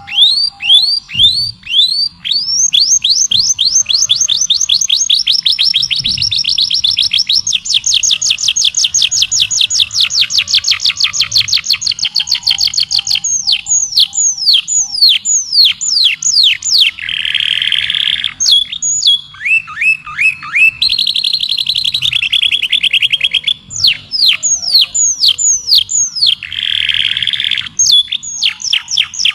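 A songbird singing a long, fast, varied song: rapid runs of down-slurred whistled notes, a long fast trill, and a few short harsh buzzy phrases, broken by brief pauses.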